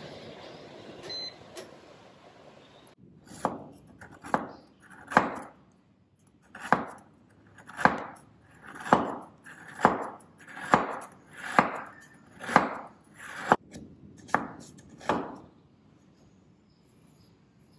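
A large serrated knife chopping a block of coconut palm sugar on a bamboo cutting board, shaving it into shreds. About a dozen strokes come roughly one a second, each a short crunch ending in a knock on the board.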